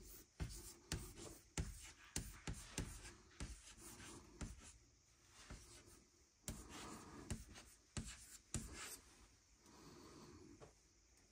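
Faint footsteps and scuffs: irregular clicks and scrapes, a few a second, thinning out about nine seconds in.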